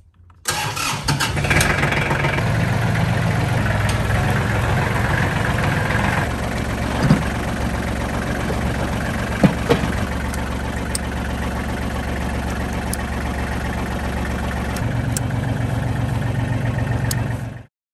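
Kubota tractor's diesel engine starting on the key about half a second in, then idling steadily, with a few sharp knocks partway through. The engine sound cuts off suddenly near the end.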